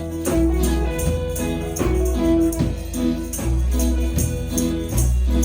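Band playing an instrumental passage of a reggae song: held bass notes under pitched instrument lines, with steady, evenly spaced percussion ticks.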